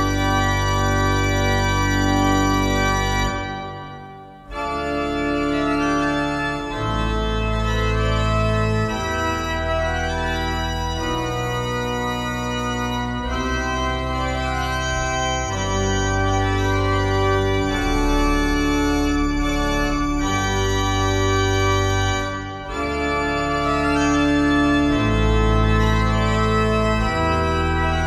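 Pipe organ built by Heinrich Schiffner in 1913 playing slow, sustained chords over held bass notes that change every second or two. The music breaks off about three seconds in and resumes a second later.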